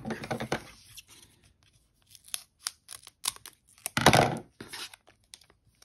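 Foil booster-pack wrapper being cut open across the top with scissors and crinkled in the hands: a brief rustle, a run of short snips and clicks, then a louder crinkle about four seconds in.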